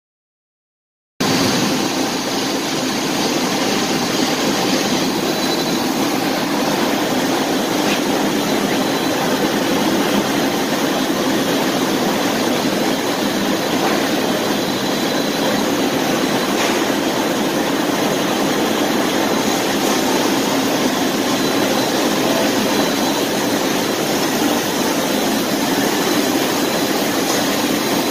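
Industrial paper printing/converting machine running steadily, its rollers turning and feeding a paper web, giving a continuous even mechanical noise that starts suddenly about a second in.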